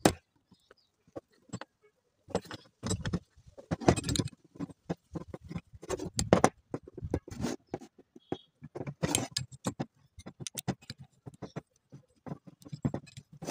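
Ratchet clicking and metal clinking in short irregular bursts as a 10 mm bolt is worked loose on a BMW M52 engine's oil pump, freeing the oil pickup tube.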